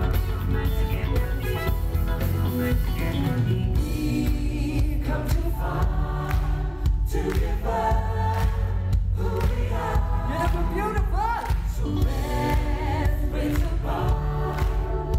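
A male vocal harmony group singing together in close harmony over a live band with drums and bass, recorded from the audience.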